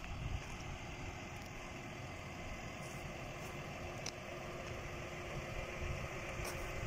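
Tractor engine running steadily under way on the road, a low even rumble heard from the driver's seat.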